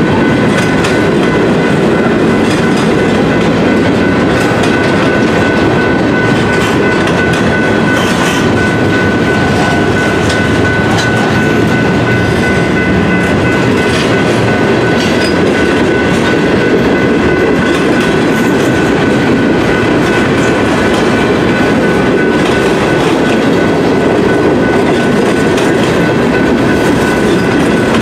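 Freight train cars rolling past close by: a steady loud rumble of wheels on rail with scattered clicks over rail joints, and a thin steady high tone running through it.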